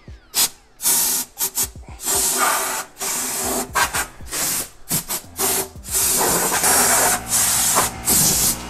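Compressed air blowing sawdust off a wooden box in repeated short hissing blasts, the blasts growing longer in the second half. A low steady hum comes in about halfway through.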